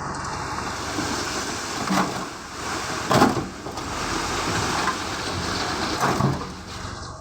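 A load of pebbles pouring out of a dump truck's tipped bed: a rushing, rattling hiss with louder surges about two, three and six seconds in, tailing off near the end.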